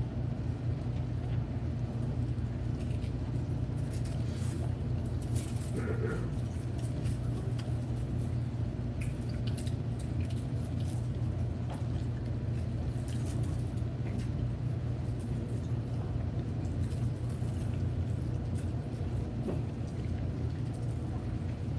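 Steady low hum of the room, with scattered faint clicks and rustles over it.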